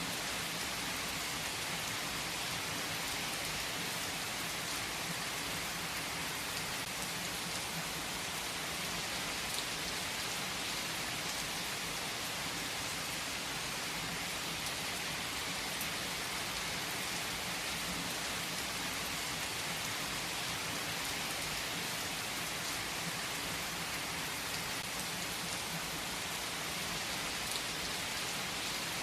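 Steady rain falling: an even, unbroken patter and hiss, with a few single drops standing out now and then.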